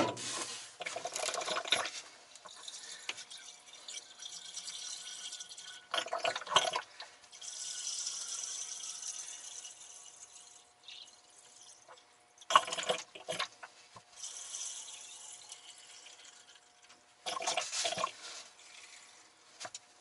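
Distilled water poured from a plastic squeeze bottle into the cells of a lead-acid battery, topping up a battery low on water. It comes in several separate pours and trickles, with short knocks of handling between them.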